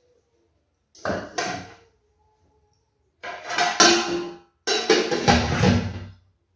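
Aluminium cooking pots and a metal lid clattering and clanking as they are set down and moved, in three short bursts about a second, three seconds and five seconds in, with a brief metallic ring.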